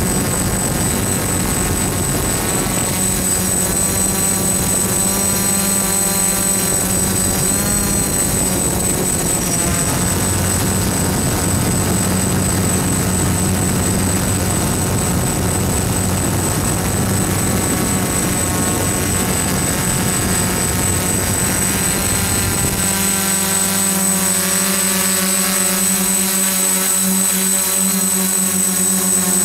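DJI F-550 hexacopter's electric motors and Graupner e-props buzzing in flight, heard from a camera mounted on the frame. The motor tones drift up and down in pitch as the throttle changes, and a low rumble underneath drops away about three-quarters of the way through.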